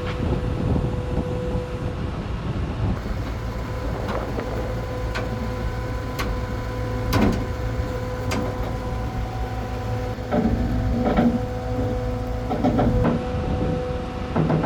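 Engine of a working machine (skid steer or forklift) running steadily under load, with a constant whine over it. Several sharp metallic knocks come through the middle, then a few louder short bursts near the end.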